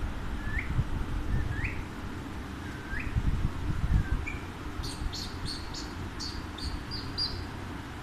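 Alexandrine parakeets chirping: four short rising chirps, about one a second, then a quick run of sharper, higher-pitched chirps in the second half, over a low background rumble.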